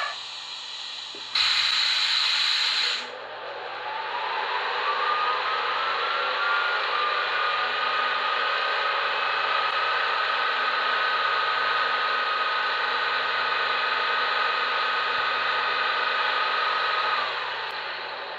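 Decoder-generated sound of an electric locomotive model, played through the model's small speaker. A short loud hiss of air comes first. Then a motor whine rises in pitch as it spins up, runs steadily for over ten seconds, and winds down and fades near the end.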